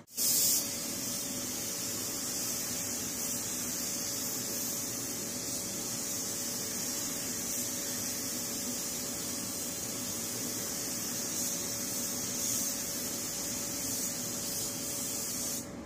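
Gravity-feed paint spray gun spraying a car body: a steady hiss of atomising air that cuts off near the end, with a faint steady hum underneath.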